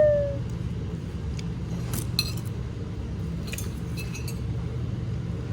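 Glasses and cutlery clinking lightly on a dining table, a few clinks about two seconds in and again near four seconds, over a steady low hum. A falling whistle-like tone fades out in the first half second.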